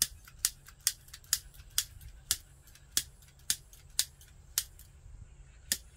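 Piezo igniter being clicked over and over while trying to light a wood fire, sharp single clicks at about two a second that do not catch.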